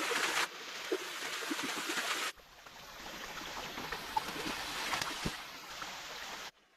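Stream water running, in several short pieces that cut off abruptly and restart, with a few small knocks over it.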